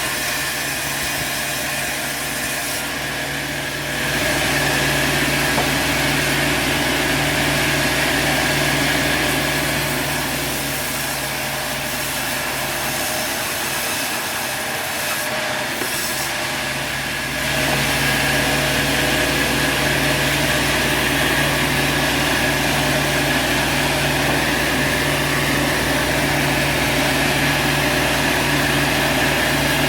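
Sawmill machinery running with a steady low hum under a noisy saw sound. It grows louder about four seconds in, eases off for a while, and rises again partway through.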